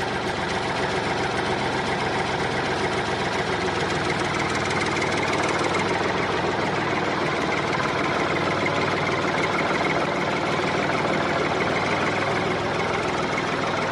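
Small engine of a homemade miniature farm machine running steadily at an even speed, shortly after being started.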